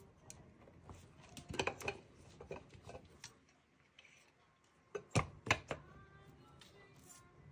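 Small hard objects handled on a tabletop: two clusters of sharp clicks and knocks, the first about a second and a half in, the second about five seconds in.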